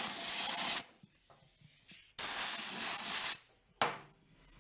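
Compressed-air blow gun blasting in bursts: one ending about a second in, a second lasting about a second in the middle, and a short puff near the end, blowing dirt out of a tiller tire.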